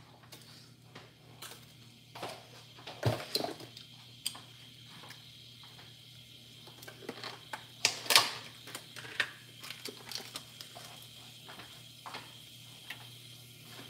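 Scattered knocks and clatter of pots and utensils being handled at a kitchen counter, the loudest a few seconds in and again about eight seconds in, over a steady low hum; a faint steady high whine comes in about halfway.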